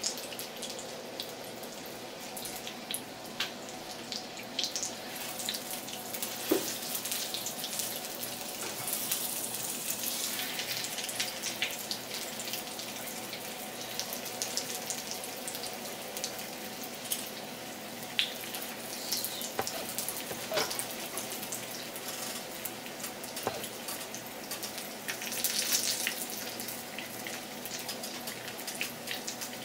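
Breaded stuffed chicken breast searing in oil in a nonstick frying pan: a steady sizzle with scattered pops and crackles, over a faint steady hum.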